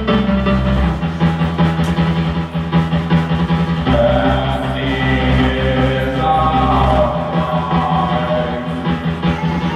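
A live band playing a song: drums under held bass and chord notes, with a singing voice over them.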